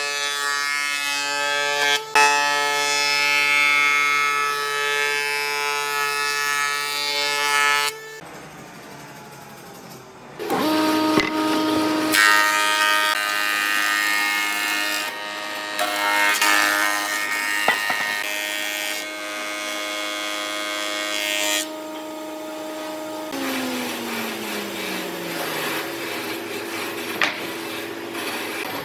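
Power tools working wood: motors run at a steady pitch with cutting or sanding noise, pause briefly about a third of the way in, and one motor winds down in pitch about two-thirds through.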